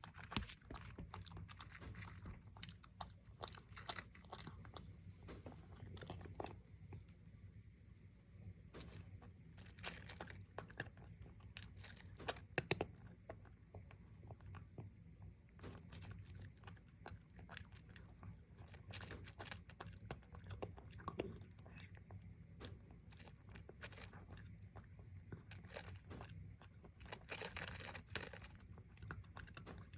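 A cat chewing crunchy food close to the microphone: a long run of irregular crisp crunches, a few louder bites about twelve seconds in.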